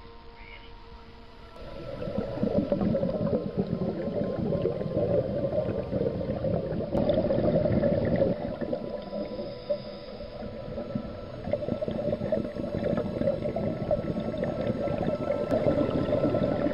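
Underwater bubbling and gurgling, heard with the microphone underwater: a scuba diver's exhaled air bubbles rushing and crackling. It starts about two seconds in and carries on with small rises and dips.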